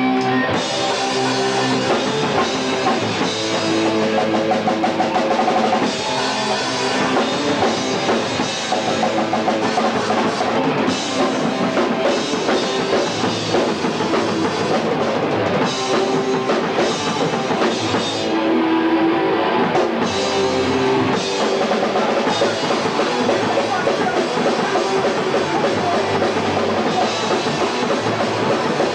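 Hardcore punk band playing live: distorted electric guitars, bass and a pounding drum kit at full volume without a break.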